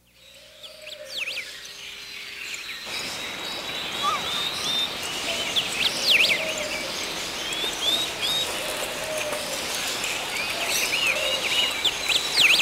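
A chorus of many birds chirping, with quick rising and falling calls, over a steady outdoor hiss that grows fuller about three seconds in.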